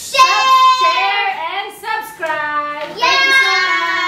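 Children singing a song with long, held notes.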